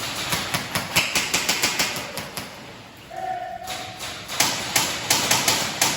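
Airsoft guns firing rapid strings of shots at several a second, echoing in a mine tunnel, with a brief lull about three seconds in before the firing resumes.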